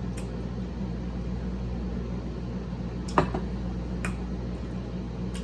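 Steady low hum of background room noise, like a fan or appliance, with a few short clicks, the sharpest about three seconds in.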